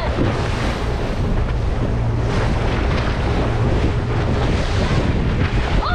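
Boat running at speed through ocean swell: the steady rush and splash of water off the hull, wind buffeting the microphone, and a low engine drone beneath.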